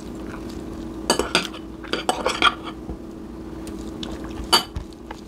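Metal cutlery clinking and scraping on a dinner plate while eating: a few clinks about a second in, a cluster around two seconds, and one sharper clink near four and a half seconds, over a steady low hum.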